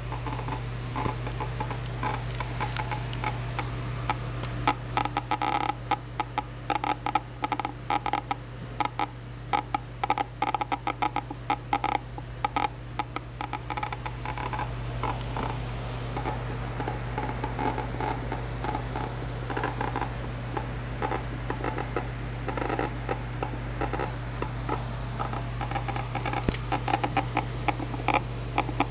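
ASUS VN247 LCD monitor crackling and ticking from its back: dense, irregular clicks over a steady low hum. A fault in a new monitor that goes away for a while after switching it off and on, and that changing HDMI cables and settings has not cured.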